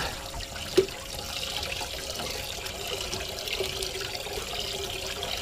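Water trickling and splashing steadily, a continuous running-water sound, with one short sharper sound about a second in.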